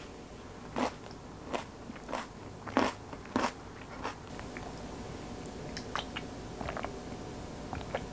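Close-miked crunchy chewing of a mouthful of smoked duck salad with crisp raw cucumber and bell pepper strips: about six loud crunches in the first four seconds, then softer, quicker clicks of chewing.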